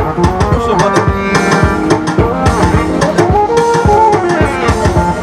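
Band music with busy, driving drums and hand percussion under a moving melodic line.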